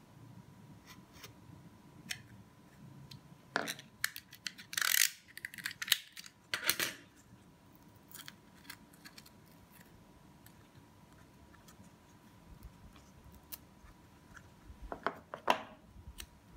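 A craft knife scraping and cutting through masking tape and paper, with small clicks of handling. There are a few short, scratchy bursts of cutting or tape being pulled free: about four seconds in, near seven seconds, and again near the end.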